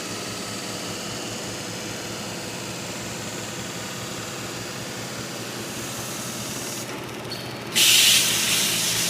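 Automated seam grinder's Scotch-Brite type polishing belt running along a stainless steel seam corner, a steady machine noise. Near the end a much louder hiss starts abruptly.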